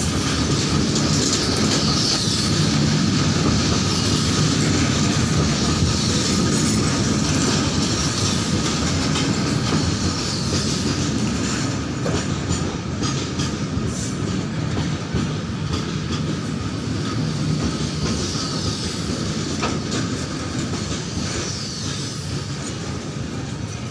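Loaded BCNA covered freight wagons of a goods train rolling past at close range. Their steel wheels run continuously on the rails, and the sound eases slightly in loudness toward the end.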